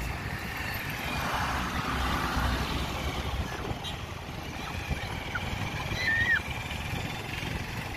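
Road and traffic noise from a moving vehicle: a steady low rumble with a hiss. A short high squeak comes about six seconds in.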